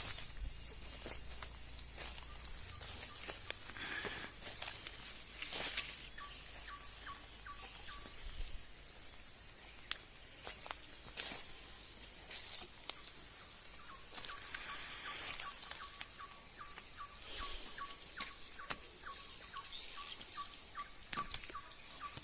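Crickets or other insects calling in a steady high trill. In two stretches a lower chirp repeats about three times a second. A few soft knocks or rustles are scattered through it.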